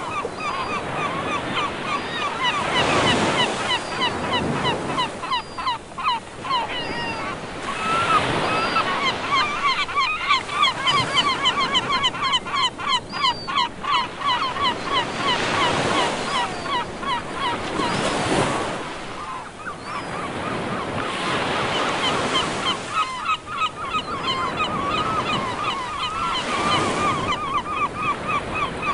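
Surf washing onto the shore, swelling in waves every few seconds, with a flock of seagulls calling in quick, repeated cries throughout.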